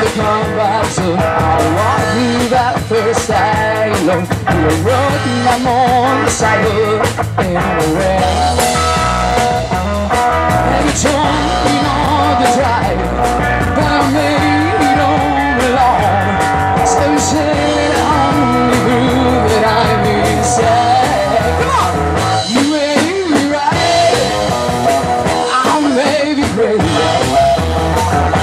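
A live rock band playing a song with a woman singing lead over electric guitars and a drum kit.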